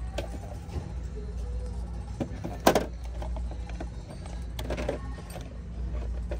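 Steady low rumble of a vehicle, with a sharp knock a little under three seconds in and a shorter clatter near five seconds.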